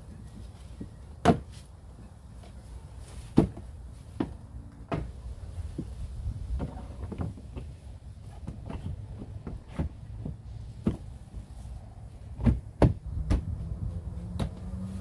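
Hard plastic wall panels of an Aerobin compost bin knocking and clicking as they are handled and fitted into place: scattered sharp knocks, the loudest about a second in, at about three and a half seconds, and two close together near twelve and a half seconds.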